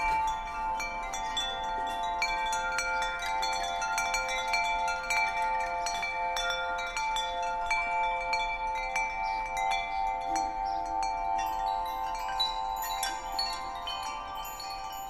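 Wind chimes tinkling: many metallic tones are struck again and again and left ringing over one another, growing a little fainter near the end.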